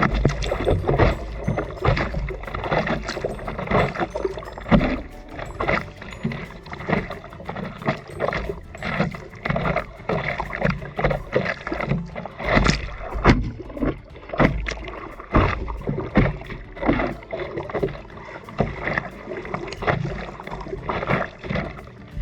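Sea water splashing and sloshing close up, with many quick, irregular splashes, as of a surfer in the water.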